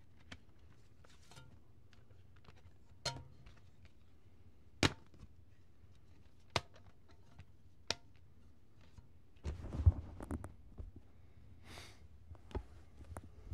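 Handling noise from a camera being picked up and moved: a few sharp single clicks a second or two apart, then rubbing and bumping against cloth from about two-thirds of the way in.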